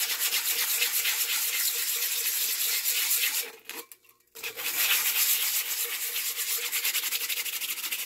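180-grit sandpaper held in the hand, rubbed in quick back-and-forth strokes over the epoxy-coated glitter surface of a tumbler to sand down sharp pieces of glitter sticking up. A scratchy rasp that breaks off for a moment about halfway through, then resumes.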